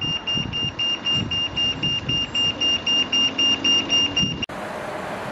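A pedestrian traffic light's audible signal for the blind sounds while the green man shows: rapid, short, high-pitched beeps, about four a second, over a traffic rumble. It cuts off abruptly about four and a half seconds in, leaving steady traffic noise.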